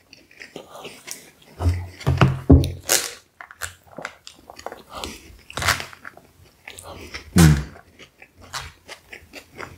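Close-up chewing and wet mouth sounds from eating a shawarma platter, in irregular clicks and smacks, with two short low mouth sounds about two seconds in and near the end. Light rustling as food is picked from the plastic takeout tray by hand.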